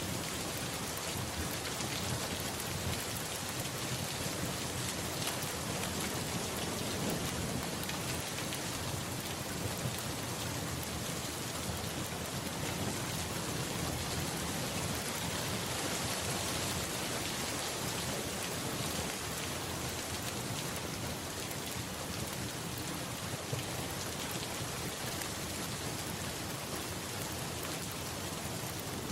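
Steady rain falling and pattering on a surface, an even hiss that holds throughout.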